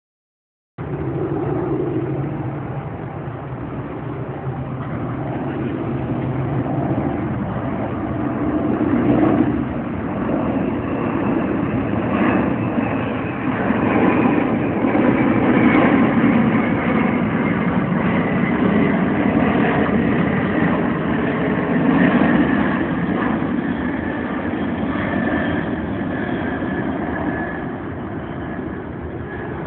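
Jet engines of the Boeing 747 Shuttle Carrier Aircraft roar as it flies over carrying the space shuttle, swelling to their loudest about halfway through. Underneath, a road vehicle's engine idles close by.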